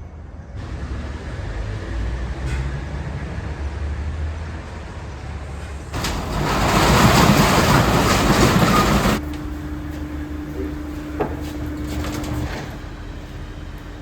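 Low engine rumble with a loud rushing noise for about three seconds in the middle that starts and stops abruptly, then a steady hum.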